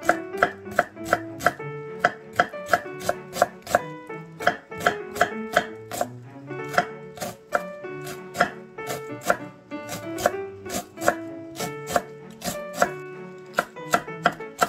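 Chef's knife shredding cabbage on a wooden cutting board: quick, even chopping strokes about three to four a second, with brief pauses. Light background music plays underneath.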